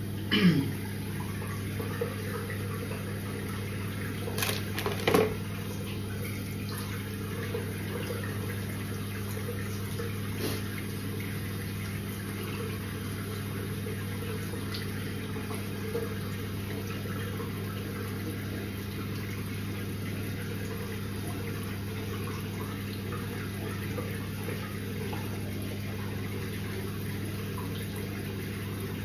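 Hot water tap running steadily into a sink, over a steady low hum, with a few brief knocks in the first few seconds, the loudest about four and five seconds in.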